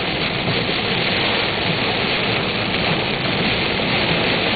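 Heavy thunderstorm rain pelting a moving car, heard from inside the cabin: a steady, dense hiss of rain on the roof and windshield with no let-up.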